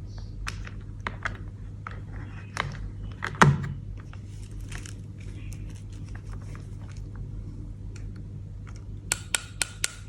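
Small plastic toy pieces being handled: scattered light clicks and taps, with one louder knock about three and a half seconds in and a quick run of clicks near the end, over a low steady hum.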